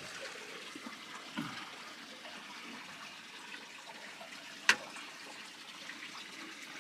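Steady rush of water running through an old mine tunnel, from the spring and small waterfall inside it. A single sharp click cuts through about two-thirds of the way in.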